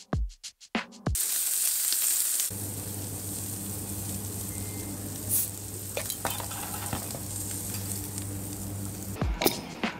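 Beer bottle cap levered off with a carbon-fibre bottle opener: a short sharp hiss about halfway through, over a steady sizzling hiss with a low hum. Music with a drum beat plays for the first second, and a few sharp knocks come near the end.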